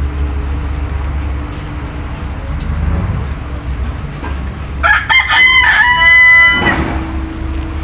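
A rooster crowing once, a single call of about two seconds that starts about five seconds in, over a steady low hum.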